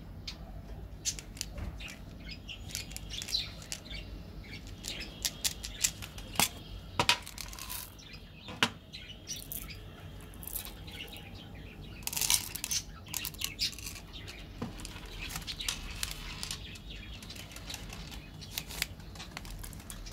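Close handling of candy packaging: scattered short clicks and taps of a plastic candy tube and small hard candies, with crinkling of foil and plastic wrappers, a denser bout of crinkling about twelve seconds in.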